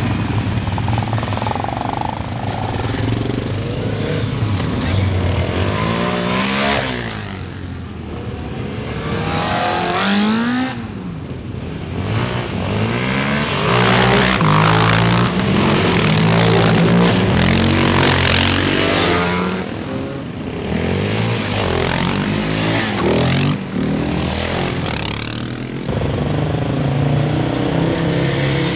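Several sport quads (ATVs) pulling away and accelerating past one after another, their engines revving up through the gears, with the pitch climbing and dropping again and again as each machine passes.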